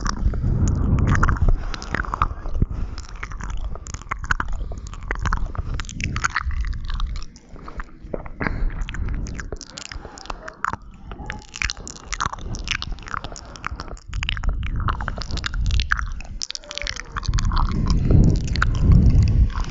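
Close-miked ASMR mouth sounds: a dense run of quick wet clicks and smacks from the lips and tongue, with a low rumble swelling at the start and again near the end.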